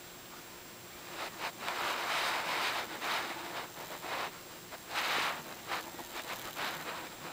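A Rottweiler breathing and snuffling through its nose right at the microphone: a series of soft, irregular breathy puffs starting about a second in, some long, some short.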